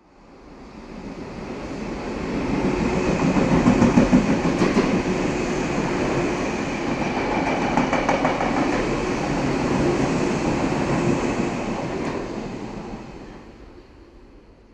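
Metro train running on its rails, a steady rumble with wheel clatter. It grows louder over the first few seconds, holds, then fades away near the end.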